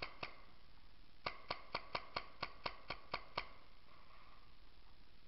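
Paintball marker firing: two quick shots at the start, then a rapid string of about ten shots at roughly five a second, stopping about two-thirds of the way through.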